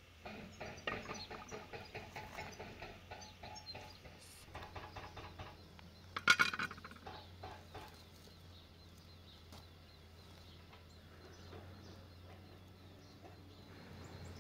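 Fowl clucking in a quick run of short notes, with one loud squawk about six seconds in, then fainter.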